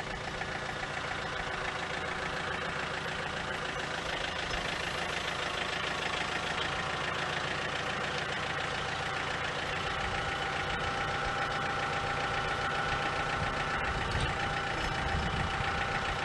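Engine of the grapple machine lifting a log onto a sawmill bed, running steadily and growing slightly louder, with a steady whine that strengthens in the second half.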